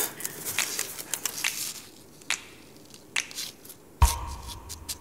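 Small tool scratching, clicking and tapping on a sheet of paper on a desk, as something is picked apart and sorted on it. About four seconds in, a single sudden low thump with a faint hum after it.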